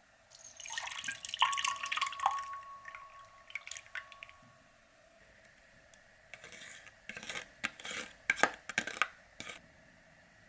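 Light household handling sounds with water dripping or pouring, and a clink that rings on briefly. A run of sharp clicks and taps follows near the end.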